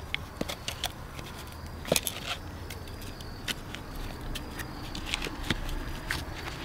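Scattered knocks, clicks and scrapes of hands setting coconut shells and stones into soil, with one louder knock about two seconds in.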